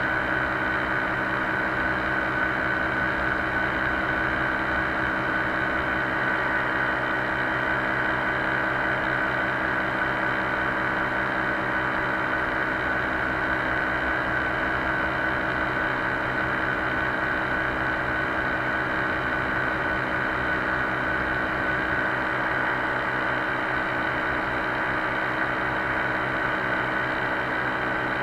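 Paramotor engine and propeller running steadily in flight, holding one even pitch throughout.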